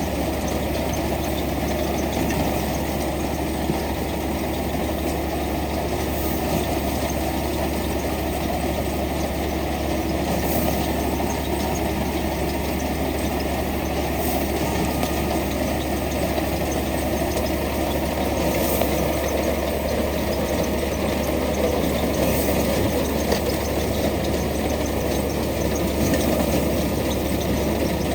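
Tractor engine running steadily as it powers a tractor-mounted wheat reaper.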